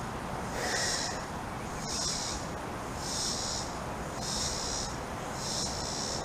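Insects calling in a high, pulsing buzz that swells and fades about once a second, five times over, above a steady low background hiss.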